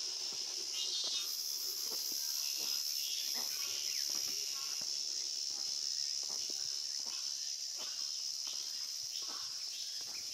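A steady, high-pitched chorus of cicadas droning in a summer forest, with footsteps on stone steps knocking about every half second.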